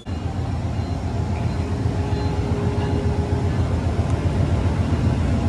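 Amtrak passenger cars rolling past at close range: a steady low rumble of wheels on the rails.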